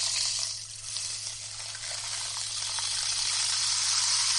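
Handmade Hourglass rainstick, its fill pattering down inside as a dense rain-like hiss of tiny ticks. The hiss thins briefly just under a second in, then swells steadily again as the fill runs down the other way after a flip.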